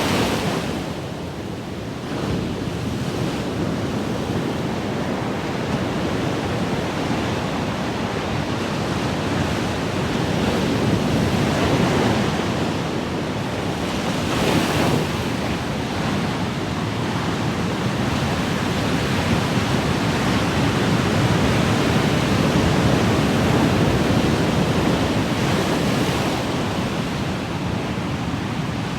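Ocean waves breaking in a continuous wash of surf that swells louder and eases off every several seconds.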